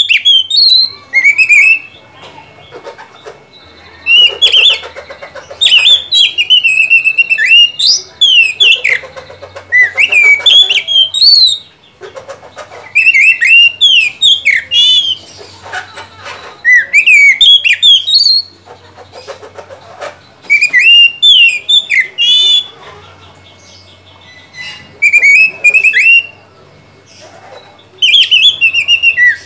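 Oriental magpie-robin singing: loud bursts of quick whistled phrases that rise and fall, each a second or two long, separated by short pauses.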